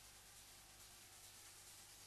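Near silence: a faint steady hiss with a low hum.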